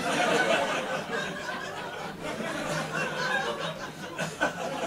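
Audience laughing and chuckling, many voices overlapping at once.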